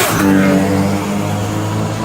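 Nissan R32 GT-R's RB26 straight-six: a rising rev breaks off sharply at the very start, then the engine runs on at lower, fairly steady revs, easing down slightly.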